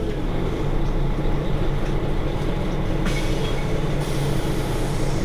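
Mercedes-Benz Citaro G C2 articulated bus's engine idling steadily while the bus stands still. A hiss comes in about three seconds in.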